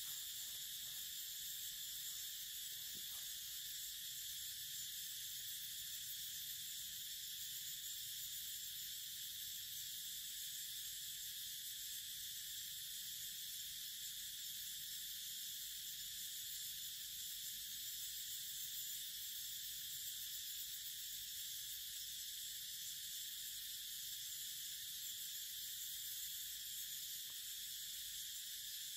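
Steady high-pitched drone of a forest insect chorus, unchanging throughout.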